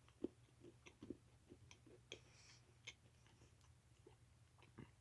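Faint, irregular mouth clicks of someone chewing a bite of a white chocolate cereal bar, over near silence.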